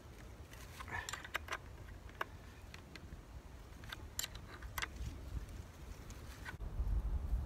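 Scattered light metallic clicks and small rattles as a Beam Machine steel guide is fitted and clamped by hand onto a Husqvarna chainsaw bar. A low rumble rises near the end.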